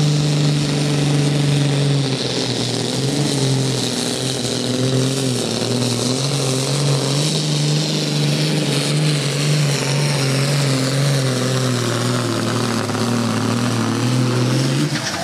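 International Harvester 1455 XL tractor's six-cylinder diesel engine pulling a weight-transfer sled flat out, a loud, steady, labouring note. Its pitch dips slightly about two seconds in, wavers under the load after that and drops away right at the end.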